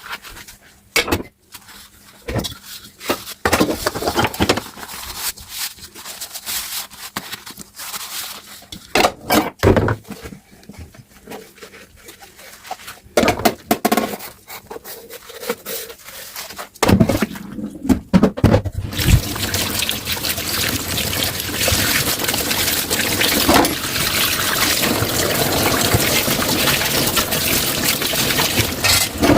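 Dishes being handled at a kitchen sink: scattered clinks and knocks of crockery and utensils, then about two-thirds of the way in the tap is turned on and water runs steadily into the sink.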